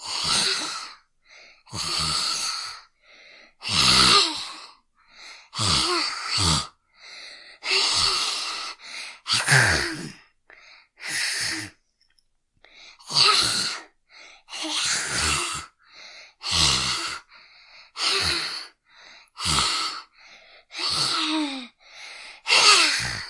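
Child zombie vocal sound effects: a series of about fifteen short groans and gasps, each under a second, spaced roughly a second and a half apart.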